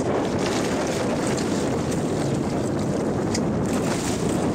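Steady wind buffeting the microphone over the wash of sea water along a fishing boat's hull.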